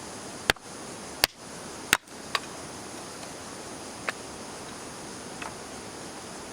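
Sharp clicks or knocks, three loud ones in quick succession about 0.7 s apart, then a few fainter ones, over a steady outdoor hiss.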